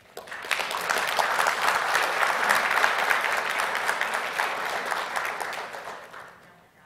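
Audience applauding: many hands clapping together, starting right at the opening, building within a second, then fading away near the end.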